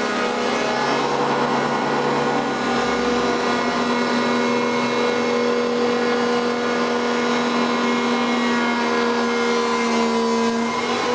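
Four-sided timber profiling moulder running with a steady, many-toned whine.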